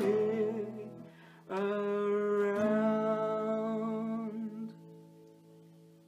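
Acoustic guitar and a man's voice closing a song. A wavering held sung note fades out in the first second, then two strummed chords about a second apart ring out and slowly die away.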